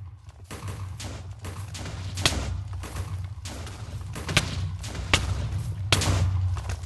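Wood crackling: a dense run of small crackles with a few sharp, loud snaps.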